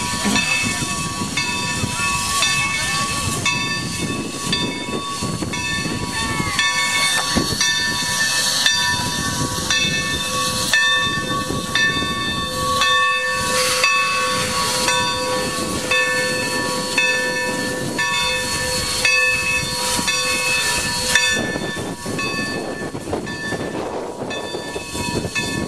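Texas State Railroad No. 201 steam locomotive hissing steam as it moves slowly, with several steady whistle-like tones and regular exhaust chuffs.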